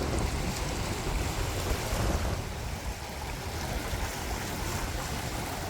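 Wind buffeting the microphone, a steady low rumble over a constant rush of open water.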